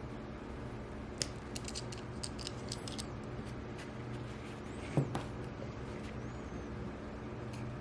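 Light clicks and small taps of metal pen-kit parts being handled and fitted together, with one louder knock about five seconds in, over a low steady hum.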